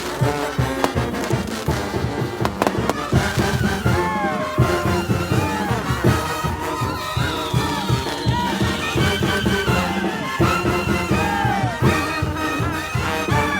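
Mexican banda de viento brass band playing live: trumpets and trombones over a steady low beat, with sliding swoops in the horn lines.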